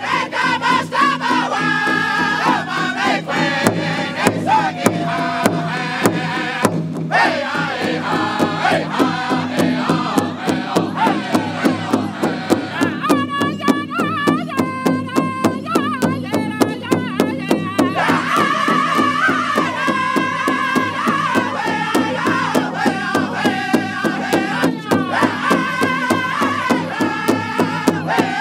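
Powwow drum group singing together over a large shared hand drum, which many drumsticks strike in unison at a steady beat. The singing is high-pitched, with the melody climbing higher for a few seconds about halfway through.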